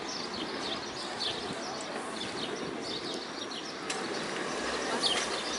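Small birds chirping repeatedly in short, quick, falling calls over a steady background hum of the street and terraces.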